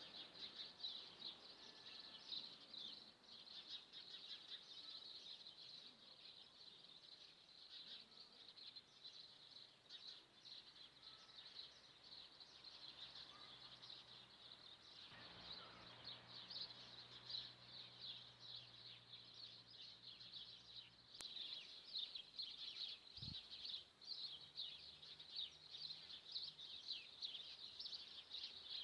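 Faint, continuous high-pitched chirping of many small birds, a dense twittering that never lets up. A low hum joins for several seconds midway.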